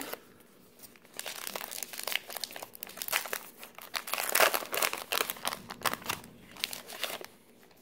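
Trading-card pack wrapper being torn open and crinkled by hand as the cards are pulled out, a dense run of crackling and rustling that starts about a second in, is loudest in the middle and dies away near the end.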